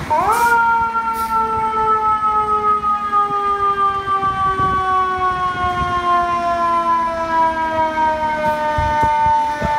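Fire truck siren winding up sharply at the start, then sounding as one long, slowly falling wail.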